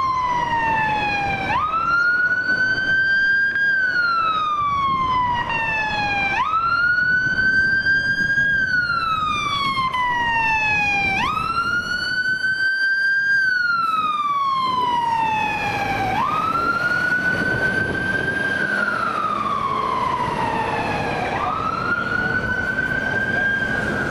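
Scania fire engine's siren on a wail: a quick rise to its top pitch, then a slow fall, repeating about every five seconds. The truck's engine and tyres run underneath as it drives past on a call.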